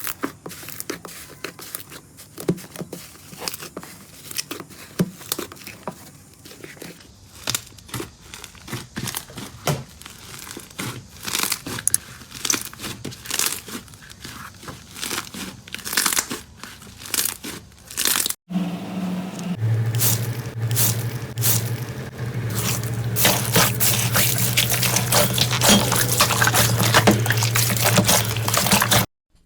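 Crunchy slime being squeezed and pressed close to the microphone, a dense run of irregular crackling pops. After a cut about 18 seconds in, the crackling gets thicker and louder over a steady low hum.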